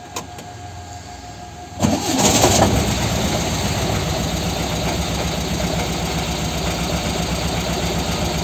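1993 Volkswagen Kombi's air-cooled flat-four engine started: a short click, then the engine catches about two seconds in, louder for a moment, and settles into a steady idle. It is the first start after the alternator was repaired and refitted.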